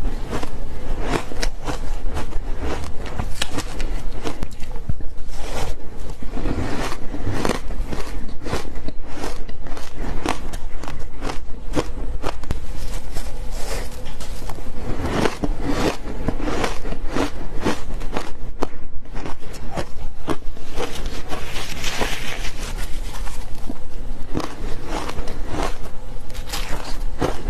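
A person biting into and chewing fluffy ice: squeaky crunching, many sharp crunches a second, bite after bite.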